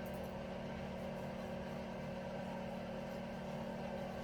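Steady mechanical hum from a motor or appliance: a low drone with a few faint steady tones above it, unchanging throughout.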